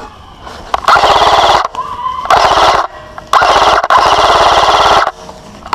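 A person screaming in three long, very loud bursts, loud enough to distort, with a rapid pulsing under each burst.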